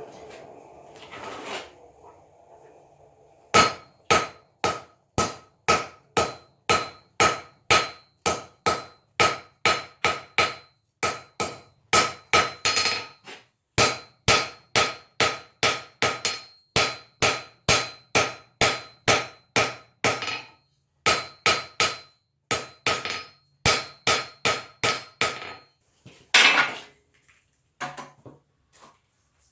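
Hand hammer striking hot steel on an anvil while forging a door-hinge pintle: a long steady run of blows, about two a second, each leaving a bright metallic ring. The blows pause briefly twice, and a few lighter taps come near the end.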